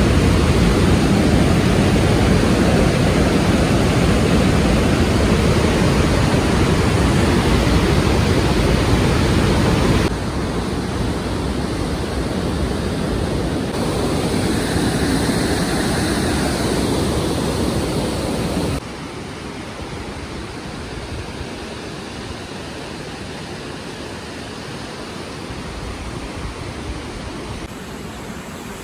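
Water rushing through a narrow rock gorge and down a waterfall, a loud, steady noise of white water. It drops suddenly in level twice, about ten and about nineteen seconds in.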